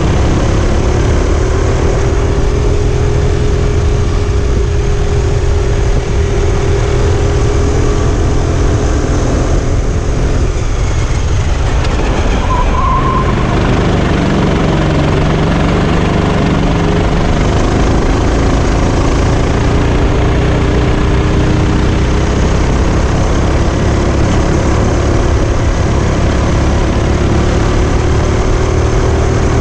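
Sodi RT8 kart's single-cylinder four-stroke engine heard onboard at racing speed, its note rising and falling as it accelerates down the straights and lifts for the corners, over a heavy rumble of wind on the microphone. About ten seconds in the engine note drops away briefly, then climbs again.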